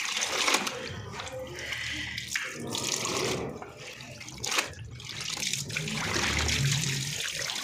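Water pouring from a hose into a plastic tub of soaking clothes, with sloshing and a few sharper splashes as the wet clothes are lifted and moved by hand.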